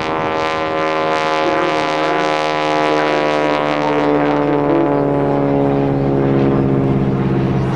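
North American T-6 Texan in flight: its Pratt & Whitney R-1340 nine-cylinder radial engine and propeller give a loud, steady, pitched drone.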